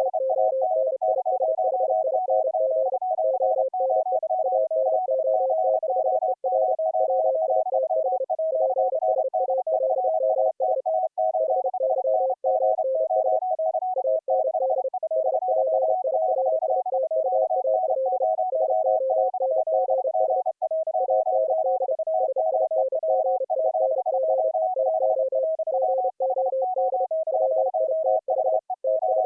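Three Morse code (CW) tones at three different pitches, keyed on and off at the same time so that their dots and dashes overlap: several operators sending at once over an audio-over-IP link, showing full-duplex operation.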